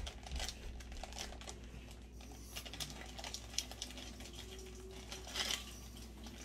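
Clear plastic bag of sushi nori sheets crinkling and rustling as it is handled and opened, with scattered small clicks and a louder rustle about five seconds in.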